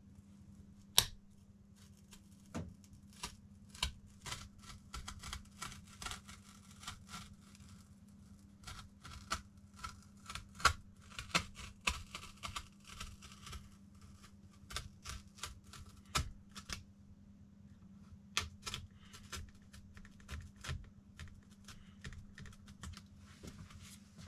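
Craft knife cutting a vinyl sticker on a cardboard backing: a run of irregular sharp clicks and scrapes as the blade works through in short strokes, the loudest about a second in. A steady low hum runs underneath.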